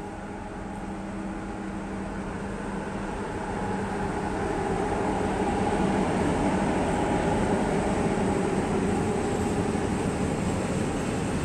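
HŽ Cargo electric locomotive hauling a train of tank wagons, approaching and passing. Its steady hum grows louder over about the first five seconds, then gives way to the continuous rumble of the tank wagons' wheels on the rails.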